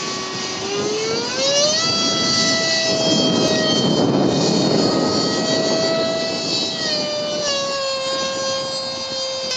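RC F-16 model's 64 mm electric ducted fan, driven by a 5800KV brushless motor, whining in flight. Its pitch rises about a second in as the fan speeds up, a louder rush of air comes around the middle, and the pitch settles a little lower near the end.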